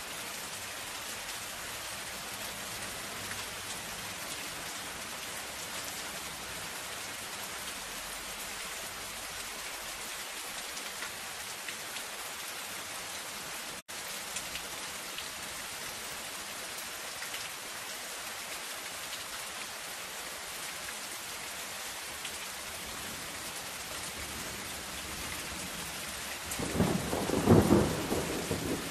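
Steady rain on a zinc roof, an even dense patter. It cuts out for an instant about halfway through, and a rumble of thunder swells up near the end.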